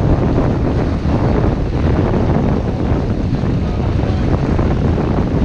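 Wind buffeting the microphone aboard a sailboat under way, a steady low rumble, with the wash of water along the hull beneath it.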